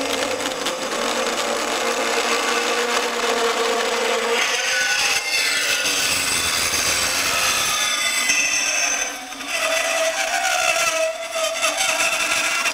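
Ridgid R8604B 18-volt cordless brushed-motor compact band saw cutting through a wide, thin-walled metal piece: very noisy, with wavering squealing tones over the grinding of the blade. The noise dips briefly about nine seconds in, then cuts off suddenly at the end as the blade finishes the cut.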